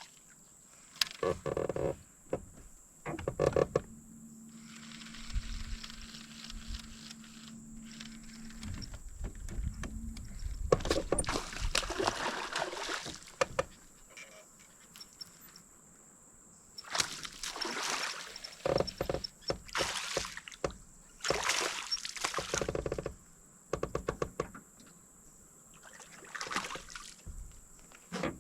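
Water splashing and knocks against a small fishing boat in a string of separate bursts. A low steady hum sounds for about five seconds a few seconds in.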